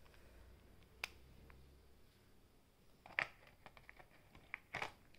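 Light clicks and plastic rattling from a small battery eyebrow trimmer being handled and pressed into the moulded plastic tray of its box: one sharp click about a second in, then a cluster of clicks and rustling from about three seconds in.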